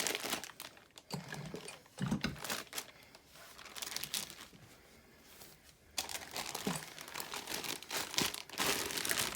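Packing material crinkling and rustling in irregular handling noises as a boxed model locomotive is worked out of its wrapping, with a few light knocks; it goes quieter for a few seconds in the middle, then picks up again.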